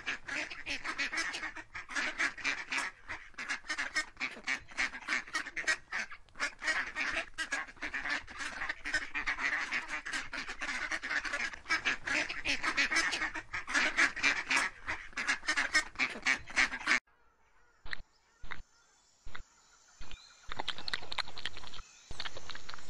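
A flock of geese and ducks honking and quacking in rapid, overlapping calls, cutting off suddenly about 17 seconds in. After that come a few sharp clicks and, near the end, a steady scratchy rustle.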